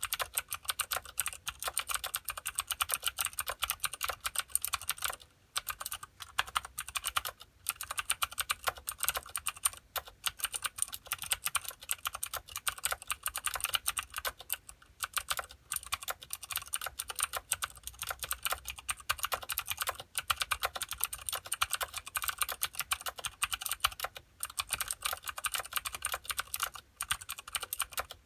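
Continuous fast typing on a Filco Minila mechanical keyboard with clicky Cherry MX Blue switches and thin ABS keycaps, a rapid stream of sharp key clicks broken by a few brief pauses.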